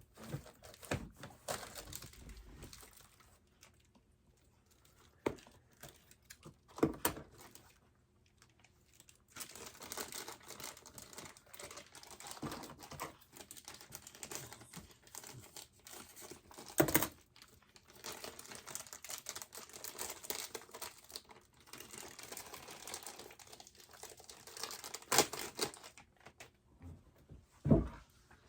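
Irregular crinkling and rustling of whelping-box bedding being shifted about, with a few sharper clicks standing out.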